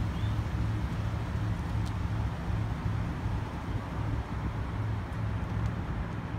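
A motor vehicle's engine running steadily, an even low hum, with a faint click about two seconds in.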